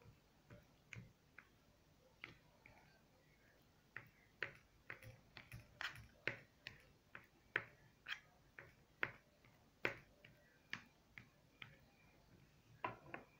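Kitchen knife chopping hard-boiled eggs on a cutting board: sharp taps of the blade striking the board, a few scattered ones at first, then a quick run of about three a second from about four seconds in.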